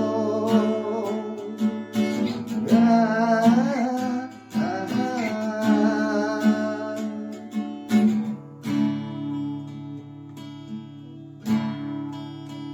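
Background song led by strummed acoustic guitar, with a wordless vocal melody over it for roughly the first eight seconds; after that the guitar plays on alone.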